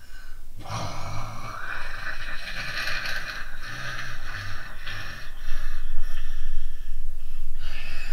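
Loud snorting, snore-like breaths, growing louder about five seconds in.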